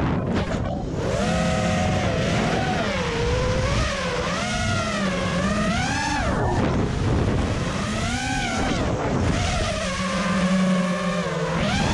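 Brushless motors and 5-inch propellers of a freestyle FPV quadcopter, heard through its onboard camera, whining in a stack of tones that rise and fall with each throttle change. The whine drops away briefly near the start and again around the middle as the throttle is cut, then climbs back.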